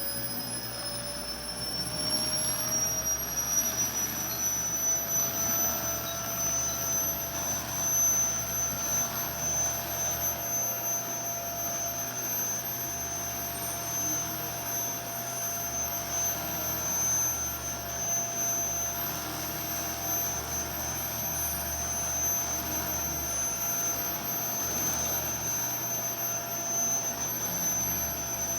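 Vacuum cleaner motor running, its high whine rising in pitch during the first couple of seconds as it reaches full speed, then running steadily with an even rush of air.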